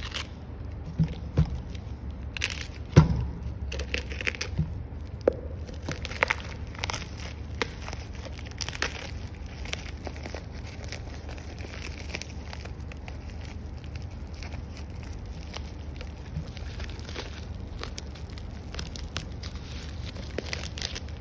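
A plastic courier mailer bag and the thin plastic wrap inside it are torn open and crinkled by hand, with irregular crackling throughout. A few sharper knocks come in the first few seconds, the loudest about three seconds in.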